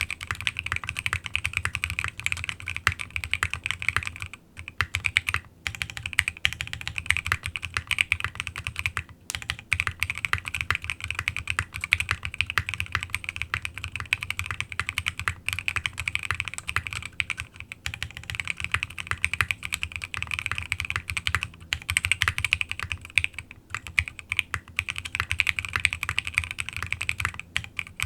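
Fast continuous typing on a gasket-mounted custom mechanical keyboard with lubed, filmed Alpaca v2 linear switches, a polycarbonate plate and KAT-profile keycaps. Rapid keystrokes run with only a few brief pauses.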